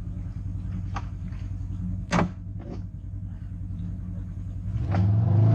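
Polaris RZR 4 900 side-by-side's engine running steadily at low speed, with one sharp knock about two seconds in; near the end the engine revs up and gets much louder.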